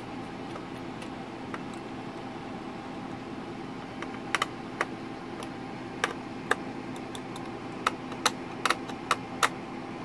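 Small screwdriver working the screws of a laptop's 2.5-inch drive caddy: a scatter of short, sharp metal clicks, about ten of them in the second half, over a steady low hum.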